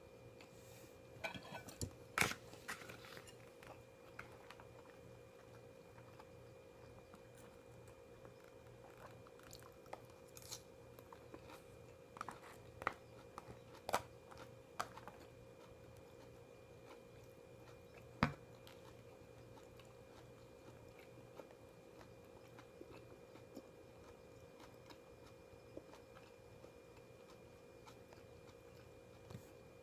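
A person chewing and biting food, with scattered soft clicks and crunches coming in clusters, the sharpest about two seconds in and again past the middle, over a steady faint hum.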